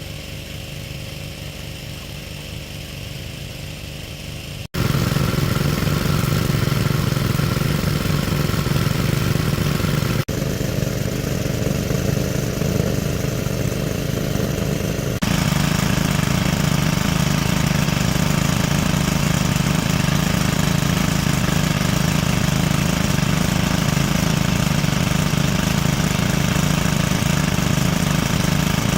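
A small engine running steadily at an even speed. It becomes much louder about five seconds in, after an abrupt break, and a couple of later abrupt breaks leave it otherwise unchanged.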